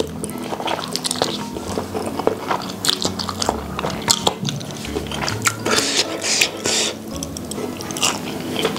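Eating spicy instant noodles: slurping them off chopsticks, then chewing with many wet smacks and crunchy clicks, over steady background music.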